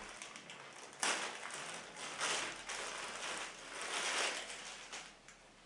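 Clear plastic bag crinkling and rustling in irregular bursts as a cap is pulled out of it. A sharp crackle comes about a second in, and the loudest rustles fall in the middle, dying down near the end.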